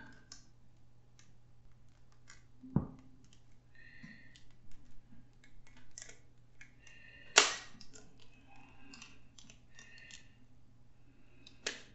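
Handling sounds from a plastic toy sonic screwdriver being twisted apart to get at its battery section: scattered small clicks and several short plastic creaks, a dull knock about three seconds in, and a sharper, louder click about seven seconds in.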